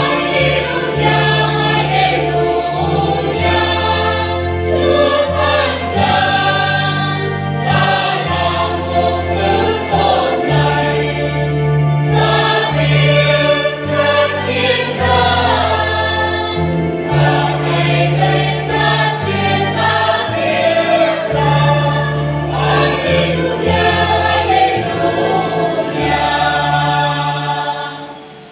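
A church choir sings a hymn in several voices over keyboard accompaniment with held bass notes. The music fades away near the end.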